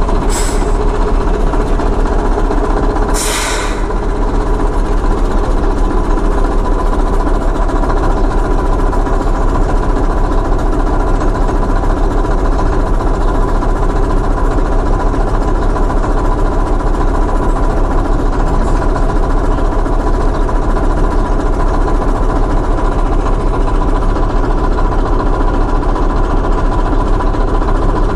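Jenbach DM100 narrow-gauge diesel locomotive idling steadily. Two short hisses come in the first few seconds.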